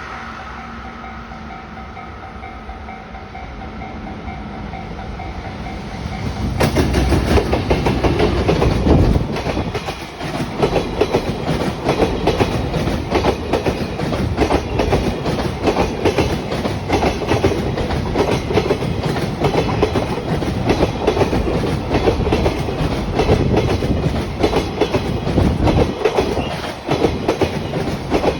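Level-crossing alarm ringing steadily, then about six seconds in an EF210 electric freight locomotive arrives loudly. A long string of container wagons follows, their wheels clacking rhythmically over the rail joints.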